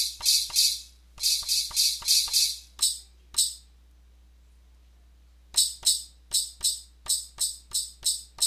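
Percussion sample from a Maschine drum machine, high-pass filtered so only a bright, thin top end is left, hit in a quick even run of about four hits a second. The hits stop for about two seconds in the middle, then start again.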